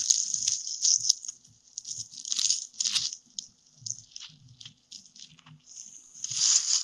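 Dry grass and reed stalks rustling and crackling right against the camera's microphone in irregular bursts, with louder swells about halfway through and again near the end.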